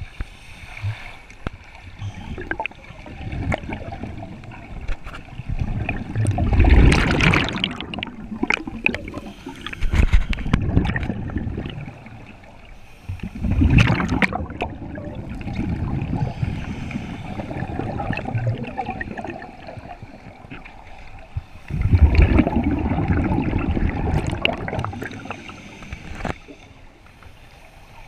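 Scuba regulator exhaust bubbling as a diver breathes out underwater, heard through the camera housing: four main rushes of gurgling bubbles, a few seconds apart, with quieter water noise between breaths.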